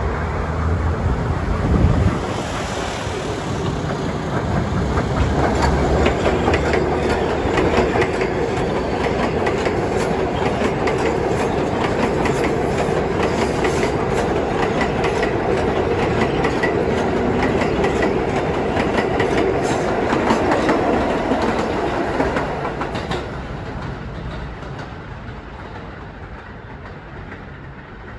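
R188 subway train running past on the elevated steel structure: a steady rumble with wheels clacking over the rail joints. It builds over the first few seconds and fades away from about 23 seconds in.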